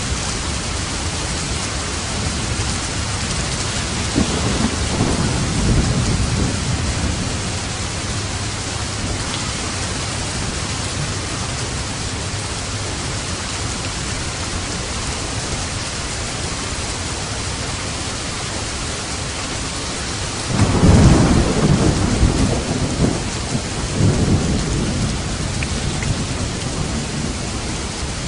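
Steady heavy rain with thunder: a rumble about four seconds in, and a louder, sudden roll of thunder around twenty seconds in that swells again a few seconds later before fading back under the rain.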